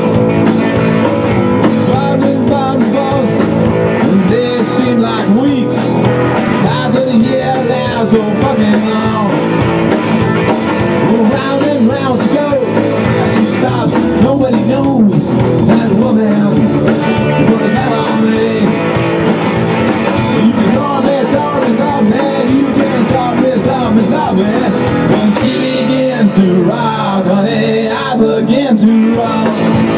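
Live rock band playing a rock and roll number: electric guitars over a drum kit, loud and unbroken.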